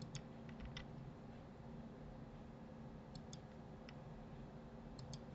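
Faint, scattered clicks of a computer mouse and keyboard: several in quick succession just after the start, a pair about three seconds in, one a little later and another pair near the end, over a faint steady low hum.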